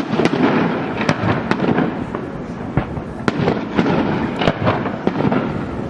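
Fireworks going off in a dense barrage: continuous crackling with many sharp bangs at irregular intervals.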